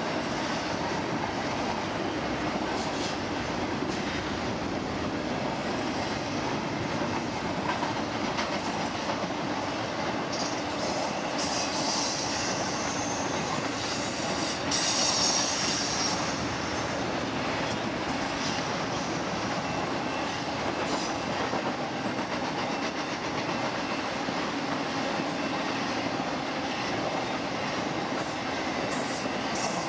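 Intermodal freight train cars rolling past on a curve: a steady rumble and clatter of steel wheels on rail. Wheel flanges squeal in high-pitched bursts between about 11 and 16 seconds in.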